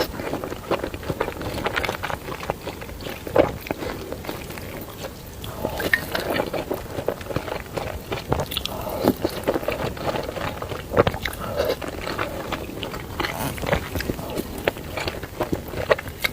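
A person eating noodles close to the microphone: chewing with irregular wet smacks and clicks.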